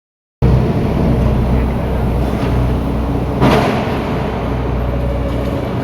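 Heavy diesel engine running steadily, with a short sharp burst of noise about three seconds in.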